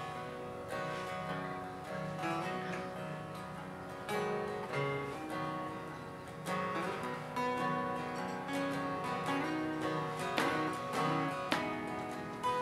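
Two acoustic guitars strummed and picked together over a plucked upright double bass, playing the instrumental opening of a folk song.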